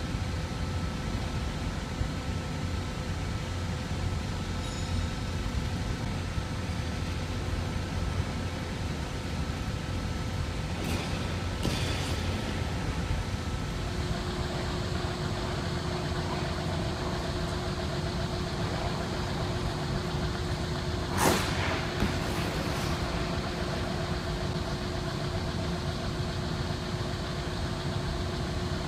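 Steady hum of an ice rink's machinery and air handling, its tone changing about halfway through. A few short scraping hits of skate blades on the ice stand out above it, the loudest about two-thirds of the way in.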